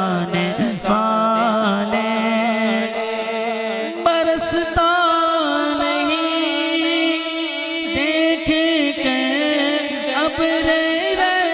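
A male naat reciter singing long, wavering melodic notes into a microphone over a steady held low note that steps up in pitch about four seconds in.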